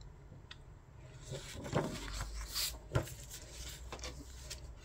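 A thin paper poster handled on a wooden tabletop: soft rustling and rubbing of paper as it is folded and laid down, with a sharp light tap about three seconds in.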